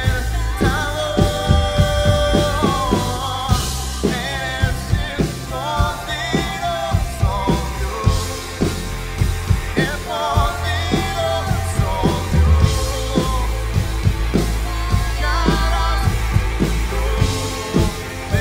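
Live worship band playing a Spanish-language song: drum kit hits in a regular beat, electric guitar and bass under a sung lead vocal melody.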